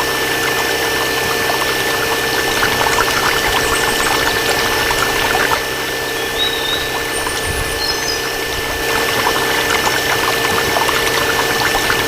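A small motor humming steadily over a continuous pouring, rushing noise, with a few short high chirps now and then.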